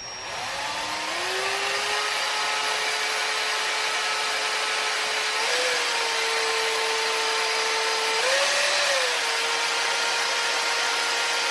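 Power drill at about half throttle spinning a geared 12-volt DC motor used as a generator under a small electrical load. The whine rises in pitch over the first couple of seconds, then holds steady, rising briefly twice.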